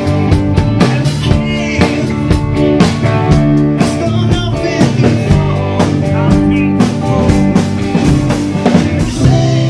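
Live rock band playing: a drum kit keeping a steady beat under electric guitars, with a man singing.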